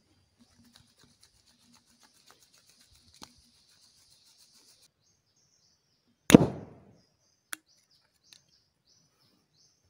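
Homemade spirit cannon, built from three milk cans, fires once with a single loud bang about six seconds in that dies away within half a second. A faint hiss comes before it, and faint bird chirps follow.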